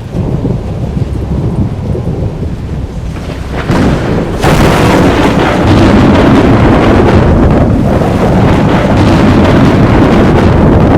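Thunderstorm with rain: a low thunder rumble, then about four seconds in a much louder peal of thunder breaks and keeps rolling heavily over the rain.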